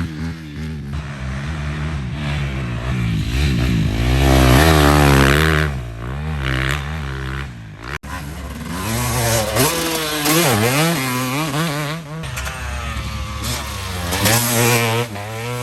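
Dirt bike engine revving up and down repeatedly as it is ridden, with a brief break about halfway through.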